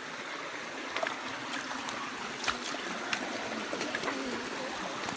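Shallow river water running over stones, with a few sharp clicks and splashes of footsteps in rubber flip-flops on wet rocks.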